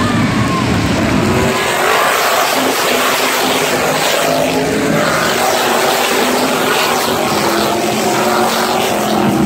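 A pack of NASCAR modified race cars running their V8 engines at racing speed past the stands, a loud, continuous blend of many engines with pitches shifting as the cars go by.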